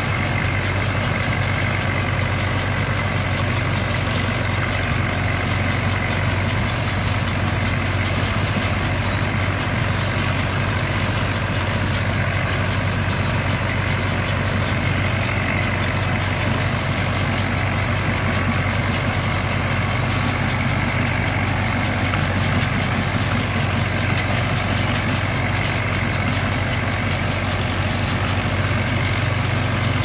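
Massey Ferguson 180 tractor engine running steadily under load as it pulls and drives a Deutz-Allis GP2.30 round baler, mixed with the steady running of the baler's machinery.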